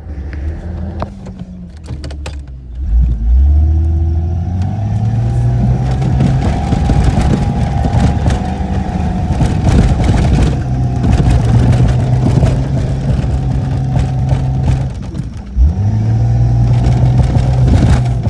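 A 1992 Jeep Cherokee XJ's engine revving up hard under load about three seconds in and holding high revs. Near the end it briefly drops off, then revs up again.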